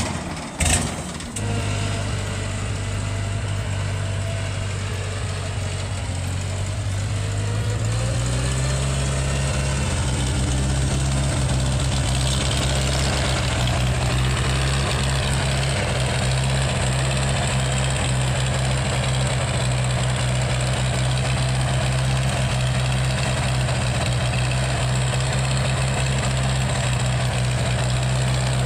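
Ford 134 cid industrial four-cylinder engine of a Gehl Hydracat 4400 skid steer catching right at the start, then running steadily. Its speed steps up about seven to eight seconds in and holds there. It is running on freshly fitted spark plugs and plug wires, as a check on whether it runs better.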